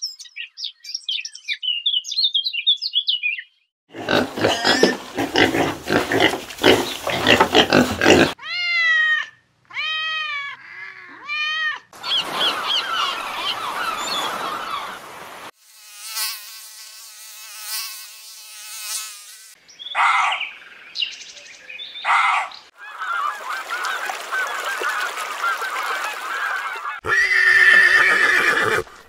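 A run of short clips of different animal and bird calls, cut one after another. The clips include high chirping, a series of repeated honking calls about nine seconds in, and horses neighing near the end.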